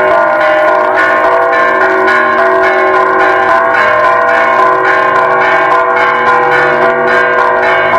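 Church bells ringing continuously in a rapid peal, several bells sounding at once with long, overlapping tones.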